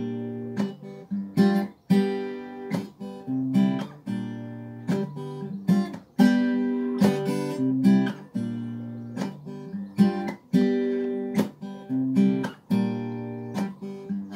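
Acoustic guitar strummed, each stroke's chord ringing and fading before the next. The chords change every second or so.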